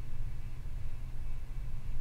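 Low, steady background rumble with a faint hiss, and no distinct event.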